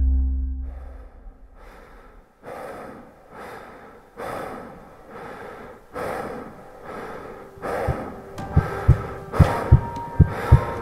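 Edited soundtrack: a bass-heavy music passage fades out, giving way to rhythmic breathing sounds, one breath about every 0.7 s. Near the end, low double thumps like a heartbeat join in under the breathing.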